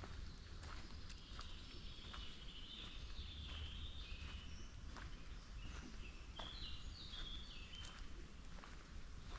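Footsteps on a forest path at a steady walking pace, about one and a half steps a second. A songbird sings a run of high, quickly changing notes through the middle, over a faint low rumble.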